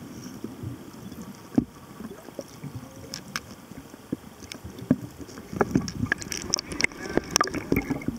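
Muffled underwater noise picked up through a diving camera's housing as a scuba diver finns along the seabed: a low rumbling wash with uneven clicks and knocks. There is one sharp knock about a second and a half in, and the clicks and knocks grow busier in the second half.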